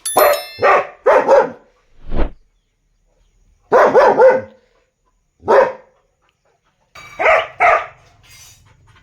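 Dog barking loudly and aggressively in short volleys of one to three barks, with pauses of a second or more between them.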